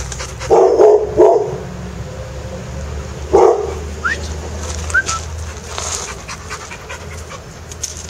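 A young dog barking at play: a few short, loud barks in the first four seconds, with panting in between.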